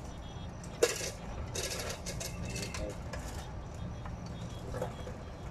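Metal chain of a chain hoist clinking against a concrete slab lid as it is set on a concrete vault: one sharp loud clink about a second in, then several lighter clinks and scrapes.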